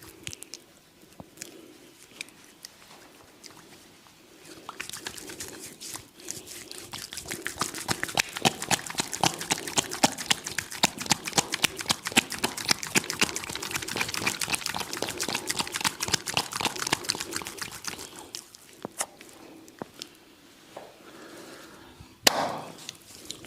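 Oiled hands working over skin in a neck and shoulder massage, making wet, slick clicking and smacking. It builds into a dense run of rapid smacks for about fourteen seconds, then eases off. One sharp, sudden sound comes near the end.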